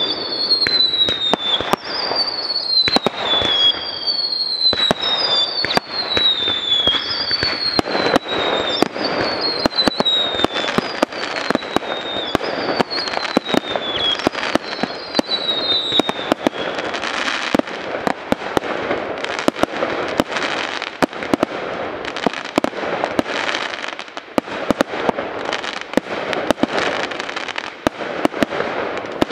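A fireworks display: many sharp bangs of shells and comets being launched and bursting. Through the first half, whistling fireworks give a run of about a dozen falling whistles, roughly one a second. After that the bangs continue over a dense crackling.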